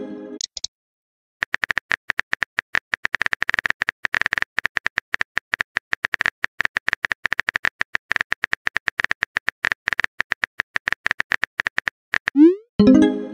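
Rapid, steady keyboard-tap clicks of a texting-story app's typing sound effect, each with a short high tick, running for about ten seconds as a message is typed out. Near the end a rising swoop and a short pitched bloop: the message-sent sound.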